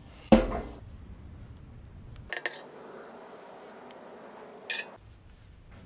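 Hands handling a removed power steering hose and its metal end fitting: a few sharp clicks with faint rustling between them. A loud short sound comes about a third of a second in.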